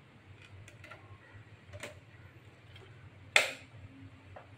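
Light clicks and handling knocks from a pistol-grip RC transmitter and a wooden RC boat hull being handled, with one sharp, loud hard clack about three and a half seconds in.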